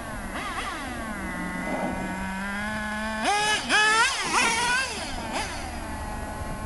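Traxxas T-Maxx RC truck's small nitro engine running at low revs, then about three seconds in revving up hard in several quick rising surges as the truck pulls a wheelie, before settling back to a steadier, lower note.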